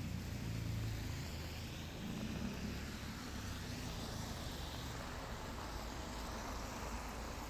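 Rain ambience with a car going by on a wet road: its engine rumble fades in the first second or so, leaving a steady tyre-and-rain hiss that swells and eases.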